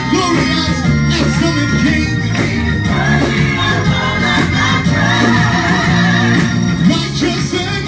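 Gospel choir singing with a lead vocalist on microphone over instrumental accompaniment with sustained bass notes, loud and continuous.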